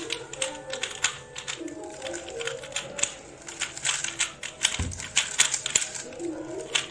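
Rapid, irregular clicking and clacking of Rubik's cubes being turned fast during a speedsolve, the plastic layers snapping as they rotate.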